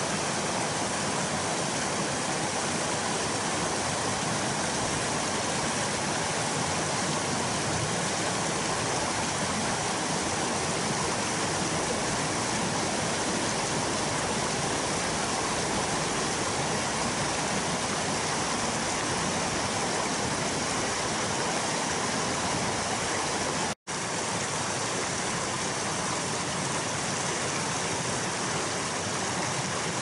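Mountain stream rushing over rocks in shallow rapids, a steady, even roar of water. The sound cuts out for an instant about three-quarters of the way through.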